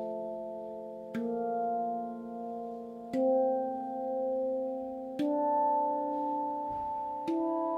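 RAV Moon D Integral steel tongue drum played by hand: four slow notes about two seconds apart, each stepping higher in pitch. Each note rings on long, so the tones merge together and build.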